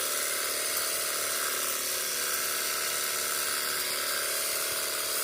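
Cordless battery-powered high-pressure washer running steadily: its small electric pump motor whines with an even hiss of water spraying through a wide spread-spray nozzle.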